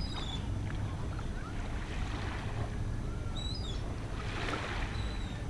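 Low, steady rumble of wind on the microphone over shallow water sloshing around a small child's feet as he wades at the shoreline, with a louder splash about four and a half seconds in. A few short, high chirps come through faintly.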